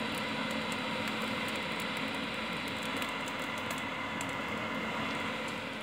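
Small axial blower fan on a pellet burner running steadily, an even whir with a faint whine, its speed set by a rotary speed controller.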